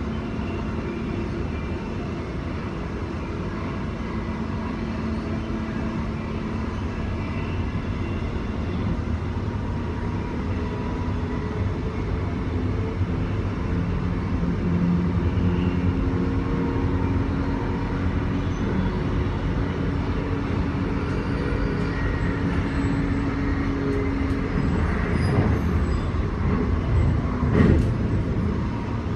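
Inside an electric suburban train running at speed: a steady rumble of wheels on track with a low motor hum. Near the end come a few sharp knocks.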